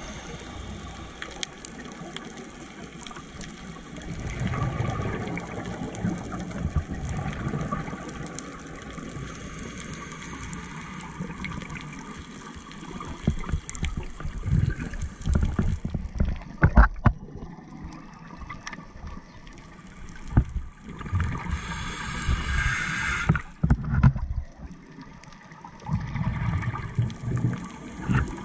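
Underwater sound of a scuba diver breathing through a regulator: gurgling surges of exhaled bubbles every several seconds over a steady low rush of water. A short hiss of inhalation comes about three-quarters of the way through.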